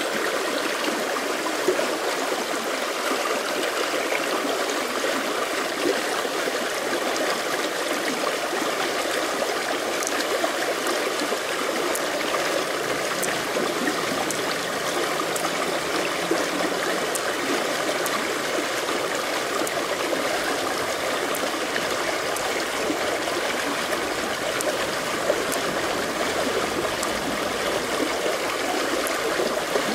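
A river stream running: a steady, even rush of flowing water.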